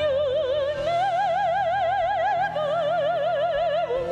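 A woman singing a slow show-tune ballad in a trained, full voice with wide vibrato, into a handheld microphone. She holds three long notes, stepping up, then down, then up again, over a soft steady instrumental accompaniment.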